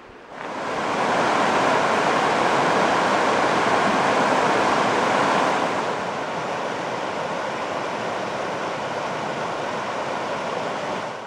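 Steady rushing of a clear mountain river running fast over rocks. It drops a little in loudness about halfway through.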